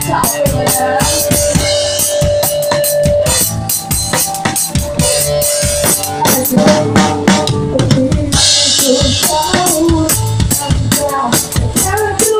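A pop-punk band playing live, heard from right beside the drum kit: fast, steady kick, snare and cymbal hits are loudest, over held electric guitar chords.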